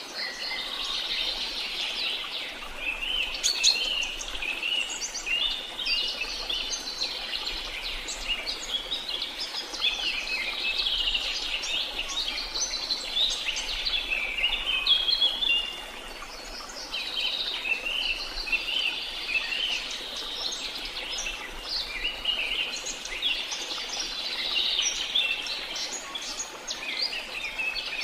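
A dense chorus of many small birds chirping and trilling over one another, continuously, with a faint steady hiss underneath; the chorus thins briefly about halfway through.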